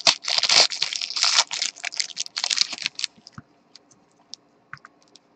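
Trading card packs being torn open, with the wrappers crinkling in bursts for about three seconds, followed by a few light clicks and taps as the cards are handled.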